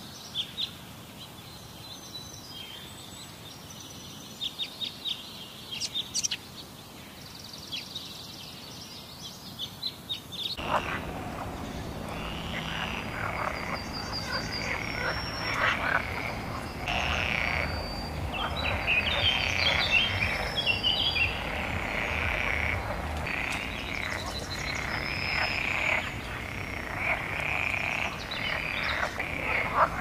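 Sparse high chirps and clicks, then about ten seconds in a frog chorus starts abruptly, with many overlapping calls that carry on steadily.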